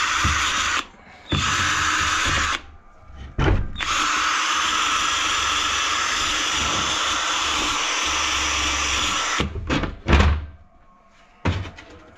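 Handheld power tool working the metal around the bolt holes of a gearbox casing, running in spurts: two short stops in the first few seconds, then a long steady run that stops about nine and a half seconds in. A few knocks follow as the tool or part is handled.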